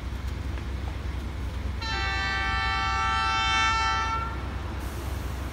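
Horn of a D19E diesel-electric locomotive sounding one long blast of about two and a half seconds, starting about two seconds in, several tones sounding together. Underneath is a steady low rumble.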